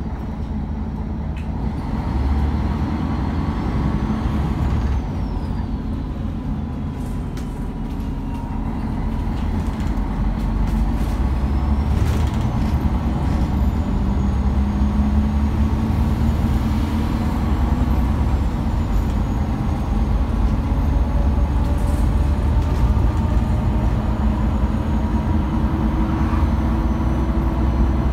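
Cabin noise inside a MAN A23 articulated city bus under way: the diesel engine and Voith automatic gearbox running under a steady low rumble, with road and tyre noise. It gets louder about two seconds in and again from about ten seconds in as the bus picks up speed, with a faint high whine rising and falling.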